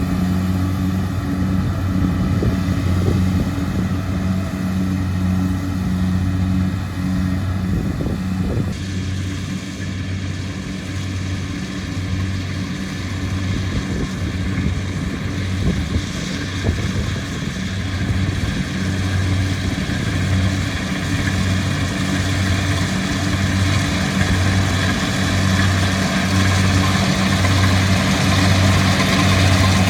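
Kubota DC-70 rice combine harvester running, its diesel engine giving a steady low drone that pulses slowly and regularly. A hissing noise from the machinery grows louder in the second half.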